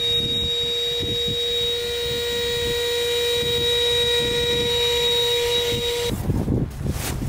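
Electric air pump running with a steady, even hum while it inflates a car air mattress; it cuts off abruptly about six seconds in, followed by gusty wind noise on the microphone.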